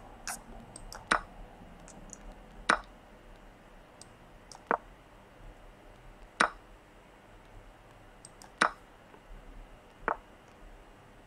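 Chess.com's online move and capture sounds: about seven short, sharp clicks at uneven intervals of one to two seconds, as moves and exchanges are played in a quick online game.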